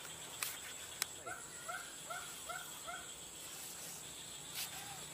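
An animal call: five short hooting notes, each rising then falling, evenly spaced at about two and a half a second. Under it runs a steady high whine, and a few sharp clicks come through, the loudest about a second in.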